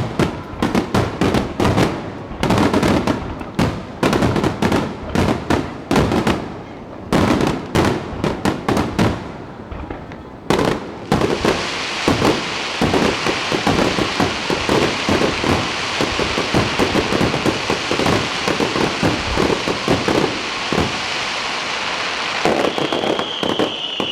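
Aerial fireworks going off in rapid, overlapping bangs for about ten seconds, then a dense, continuous crackling of many small pops from crackle shells.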